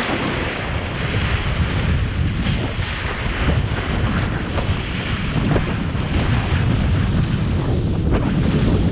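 Strong wind buffeting the microphone, mixed with water rushing and splashing around a kiteboard.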